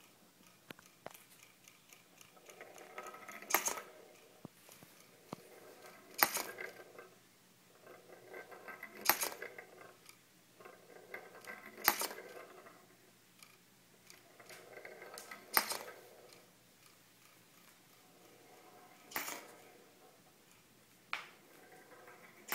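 A small hobby servo whirs for about a second, then there is a sharp knock as the doll-foot lever strikes a small ball in a wooden trough. The cycle repeats about every three seconds, with seven knocks in all.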